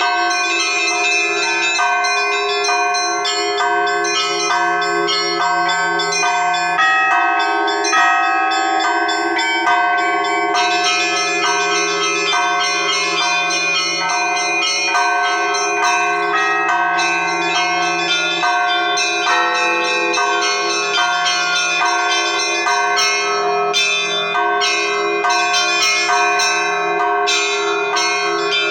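Russian Orthodox church bells ringing continuously: many small bells struck in quick succession over the steady hum of larger bells. It is the ringing that calls the faithful to the late Liturgy.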